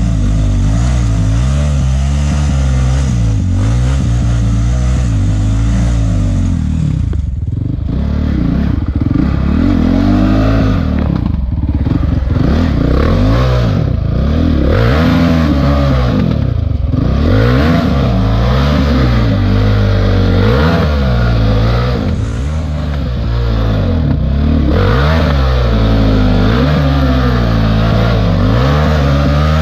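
Honda CRF450X's single-cylinder four-stroke engine working in low gear, its pitch rising and falling with short, repeated blips of throttle as the dirt bike picks its way over loose rocks.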